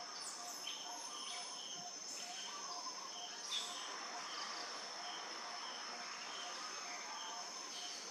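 Insect chorus: a steady high-pitched drone of crickets or cicadas, with short chirps repeating about every half second and a faint row of quick low notes beneath. One brief, sharper chirp stands out about three and a half seconds in.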